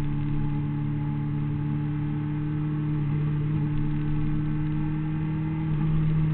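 Honda CBR600RR's inline-four engine pulling at steady high revs, heard from a camera on the bike. Its pitch rises a little about three seconds in and again near the end, over a steady rushing hiss of wind.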